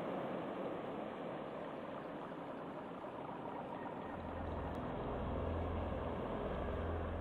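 Steady rushing noise, with a low droning rumble joining about four seconds in.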